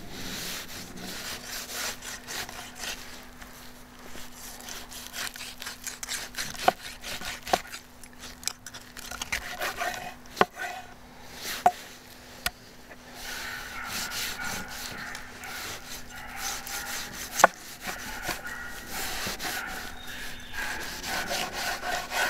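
A cleaver cutting through raw chicken on a wooden cutting board, the blade rubbing and scraping over the meat and the wood. Several sharp knocks come as the blade strikes the board, the loudest a little past the middle.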